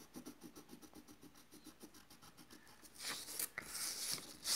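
A colored pencil shading on paper in quick, even back-and-forth strokes, faint at first. About three seconds in comes a louder scraping rustle as the sheet of paper is slid and turned on the table.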